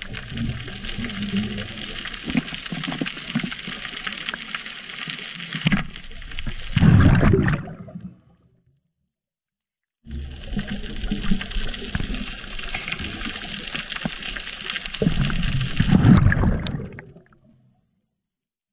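Underwater water noise picked up through a camera's waterproof housing: a steady muffled hiss and rumble, with two louder rushing surges, about seven and sixteen seconds in. The sound cuts off suddenly twice, each time for about two seconds.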